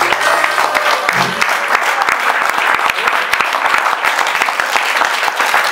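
Audience applauding: dense, steady clapping at the end of a song.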